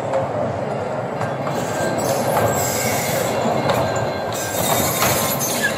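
Coin-operated kiddie ride train with small carriages rolling round its circular rail track: a steady noise of wheels running on the rail, which turns brighter and higher about two seconds in and again near the end.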